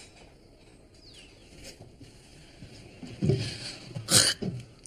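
Quiet room tone, then about three seconds in, a girl's short wordless vocal sounds with a sharp breathy hiss between them.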